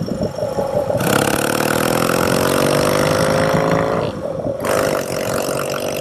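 Yamaha XS650 chopper's parallel-twin engine under way. The throttle opens about a second in and the engine climbs in pitch for about three seconds. It briefly drops off about four seconds in, as on a gear change, then pulls again at a lower pitch.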